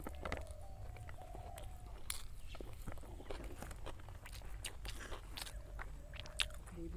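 Close-miked chewing of a mouthful of pork biryani eaten by hand, with irregular wet smacks and clicks of the mouth and fingers.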